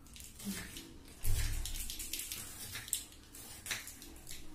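Freshly sharpened kitchen knife slicing a red onion on a wooden chopping board: a run of irregular crisp cuts, the loudest about a second in with a knock of the blade on the board.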